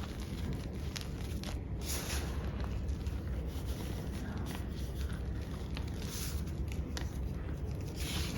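Small pebbles of black-dyed gym chalk crunched and crumbled between fingers: scattered crackles and a few short gritty crunches over a steady low rumble.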